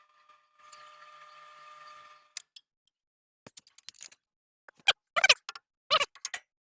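A faint steady hum that cuts off with a click, then, after a pause, a run of sharp knocks and clicks that grow loud near the end.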